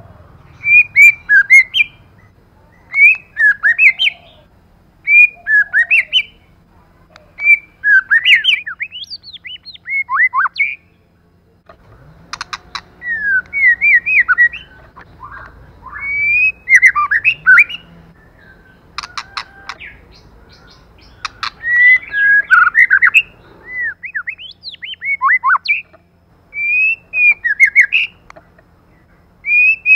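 White-rumped shama singing: short, loud phrases of whistled notes that slide up and down, one phrase every second or two, with a few sharp clicks among them.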